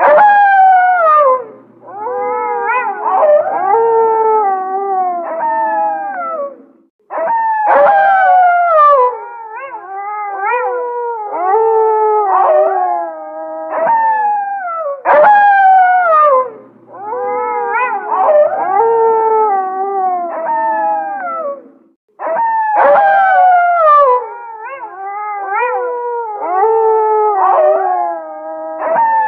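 Several gray wolves howling together in a chorus of overlapping, falling and wavering howls, with yips mixed in. The same stretch of chorus comes round again about every seven and a half seconds, with a brief gap between.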